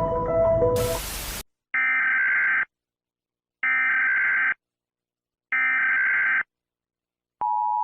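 Emergency Alert System tones: a short burst of static about a second in, then three identical one-second bursts of SAME header data tones about a second apart, then the steady two-tone attention signal starting near the end.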